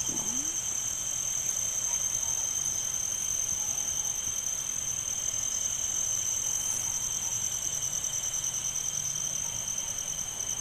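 Night insects, crickets, trilling steadily in a continuous high-pitched chorus, with a fainter, lower second trill under it.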